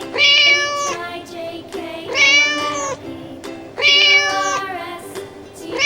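Domestic cat meowing: a long meow about every two seconds, four in all, over light background music.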